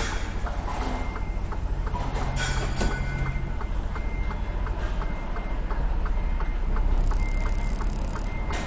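A semi truck's diesel engine running steadily, heard from inside the cab, with a regular light clicking about two and a half times a second.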